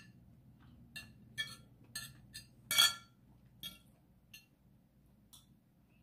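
Metal spoon and fork clinking against a plate while food is cut: about eight sharp clinks, mostly in the first half, the loudest and longest about three seconds in.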